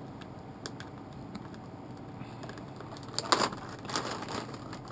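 Plastic packaging bag crinkling and rustling as a small electronic speed controller is pulled out of it. Light scattered clicks come first, then a louder burst of crinkling about three seconds in.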